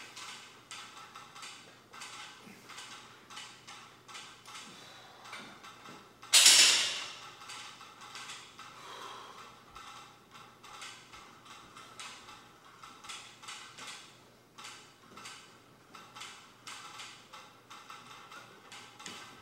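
Loaded barbell set down on the gym floor: one loud metallic clank of the plates about six seconds in, ringing briefly, over a run of faint, quick ticking.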